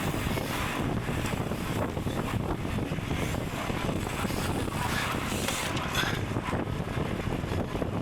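Wind buffeting the microphone of a cyclist riding at speed, a steady rushing noise mixed with tyre and road rumble.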